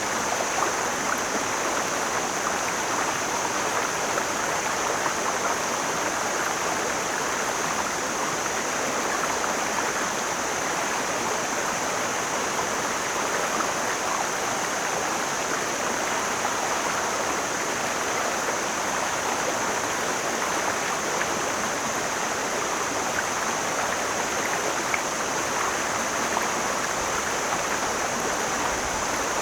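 Mountain stream flowing steadily, a full, even rush of water with no let-up, and a steady high hiss above it.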